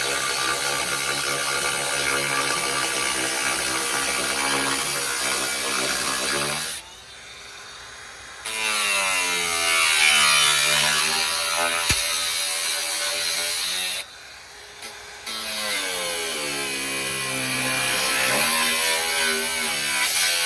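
Cordless angle grinder cutting into the steel wall of a grain dryer tube, a continuous whine whose pitch sags and recovers as the disc bites into the metal. It stops twice, about seven and fourteen seconds in, for a second or so each time, then cuts again.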